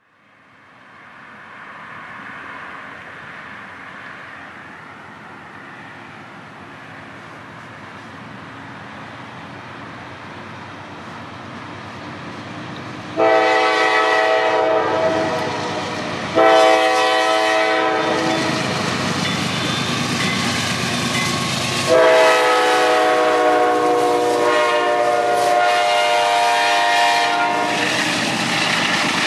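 Diesel freight locomotives, a CSX GE C40-8 leading a KCS ES44AC, approach with a steadily growing engine rumble, then pass close by. The lead unit sounds its air horn for a grade crossing: two blasts about halfway through, then a longer blast a few seconds later that carries nearly to the end.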